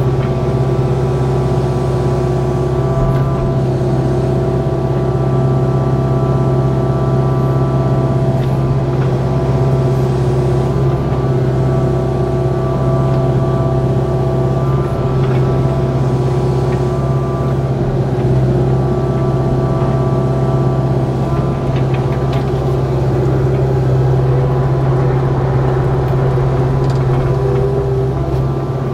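Kubota KX057-4 mini excavator's diesel engine running steadily at work speed, with a few faint knocks and clicks from the machine as it clears sticks and grades dirt on the trail.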